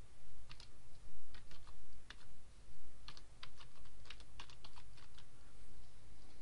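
Computer keyboard typing: irregular keystrokes clicking over a low steady hum, stopping about five seconds in.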